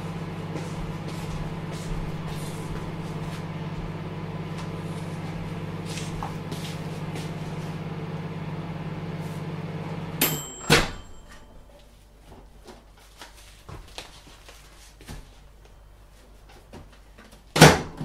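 Mechanical-dial microwave oven humming steadily while it runs, then cutting off about ten seconds in with a bell-like ding and a click as the timer runs out. A few faint clicks and knocks follow, and a loud sharp clack comes near the end.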